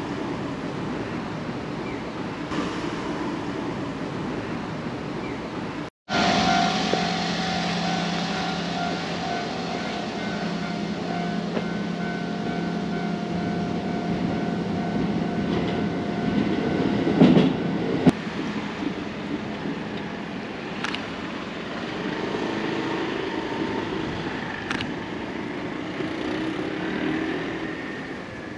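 Street ambience, then, after a brief dropout about six seconds in, a train running past close by with a steady hum and whine. A loud clatter comes near two-thirds of the way through, then it fades back to quieter street ambience.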